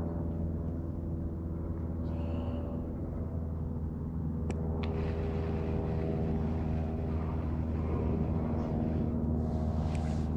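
An engine running steadily, a low hum with even, unchanging tones. Two sharp clicks come about four and a half seconds in.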